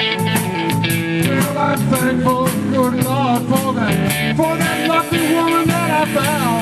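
Live electric blues band playing: electric bass, drum kit and electric guitar, with a blues harmonica played cupped against the vocal microphone at the start, its notes bending and wavering over the groove.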